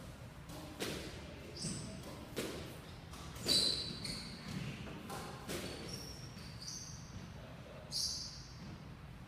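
A few scattered thuds of a squash ball and footsteps on the hardwood court floor, with short sneaker squeaks; the loudest knock and squeak come about three and a half seconds in.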